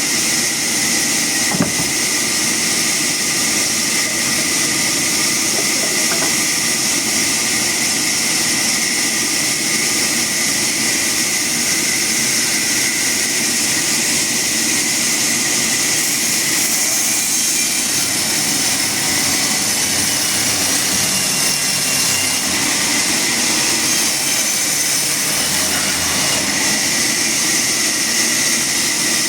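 A motor-driven machine running steadily, a continuous hum and hiss with no breaks, with one brief knock about a second and a half in.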